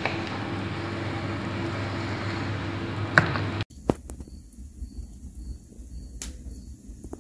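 A steady machine hum with a low drone, with one sharp click just after 3 s. About halfway through it cuts off suddenly, leaving quieter surroundings with a few sharp clicks and a faint high chirp repeating about twice a second.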